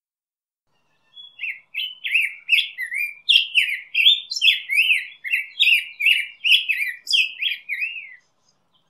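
Black-headed grosbeak singing one long song: a quick run of short, sweet notes that slide up and down in pitch, starting about a second in and stopping shortly before the end.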